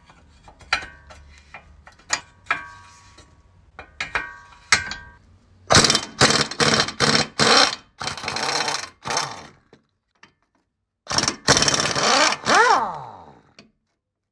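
Metal clicks and clinks of a hand wrench working a suspension nut, then an impact wrench undoing the lower ball joint's nuts and bolt from the control arm. It fires about six short bursts, then runs longer, stops briefly and runs twice more, its pitch sweeping on the last run.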